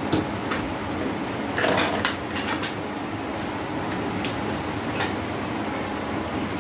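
A steady mechanical hum with light clicks and knocks scattered through it.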